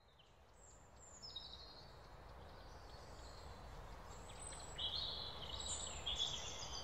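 Woodland ambience fading in: small birds chirping in short, high calls that grow louder, over a low, steady background noise.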